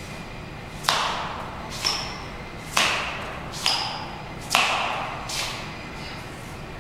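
Six sharp stamps and footfalls of sneakers on a hard tiled floor, coming in three pairs about a second apart, each ringing on in the echo of a large hall. Two of them end in a short high squeak of a rubber sole on the tile.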